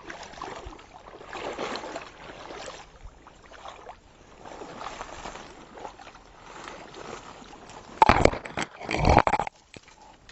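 Kayak and fishing gear being handled at the water: soft sloshing and scraping swells. About eight seconds in come two loud knocking, scraping bursts, about a second apart, as rods or gear bump against the kayak.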